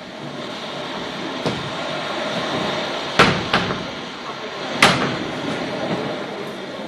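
Wooden folding deck chairs knocking and clacking as their frames are handled, opened and folded, over a steady background noise. There are four sharp knocks: one about 1.5 s in, two close together a little past 3 s (the first is the loudest), and one near 5 s.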